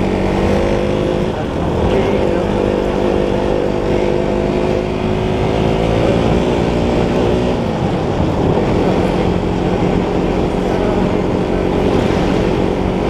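Motorcycle engine pulling at steady revs while riding at road speed, with wind rushing over the microphone. The engine note drops a little about eight seconds in.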